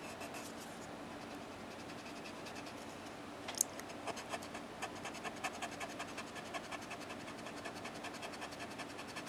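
Marker nib scratching over cardstock in short, quick strokes while touching up colouring. A sharp click about three and a half seconds in, then the strokes come thick and fast.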